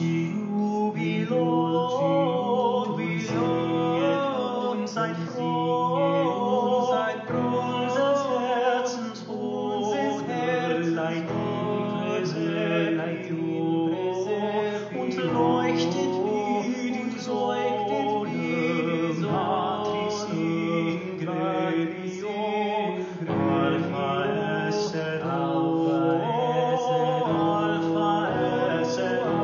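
A man singing a song to keyboard accompaniment, with a light, regular ticking on top.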